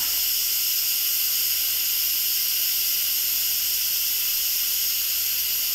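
Instant Pot electric pressure cooker letting off pressure through its steam release valve: a steady high hiss of venting steam that does not change.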